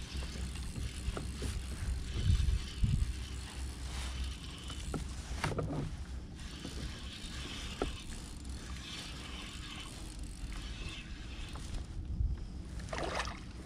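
A spinning reel being cranked steadily, its gears giving a continuous whirr, as a hooked fish is reeled in against a bent rod. A couple of dull thumps come about two to three seconds in.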